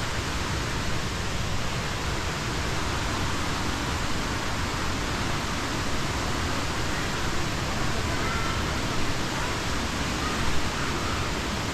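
Steady rush of water falling at a waterfall, an even hiss-like roar with no breaks.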